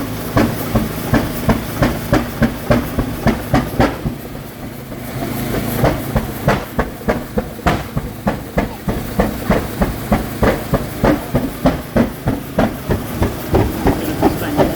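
40 HP crude-oil hot bulb engine running on its first start in over 40 years, firing in a slow, steady beat of about three strokes a second. About four seconds in the beat falters and fades for a second or so, then picks up again.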